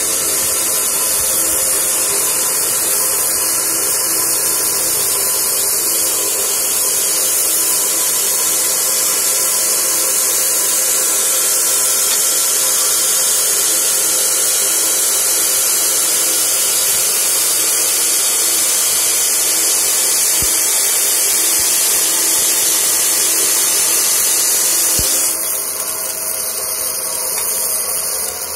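Stick welding: the electrode's arc burning with a steady, loud hiss. Its sound shifts a few seconds before the end.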